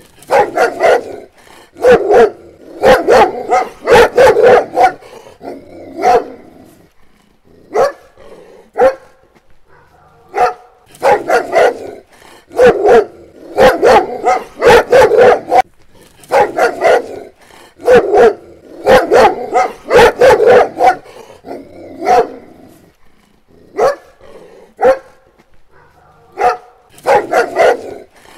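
Doberman barking over and over in bouts of several barks, with short pauses between bouts.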